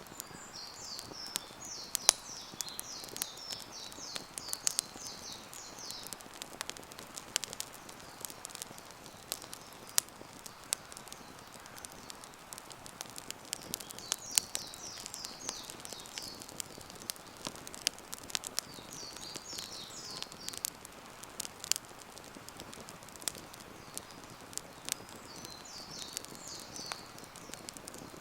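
Wood campfire crackling, with frequent sharp snaps and pops. A bird sings short high chirping phrases several times over it.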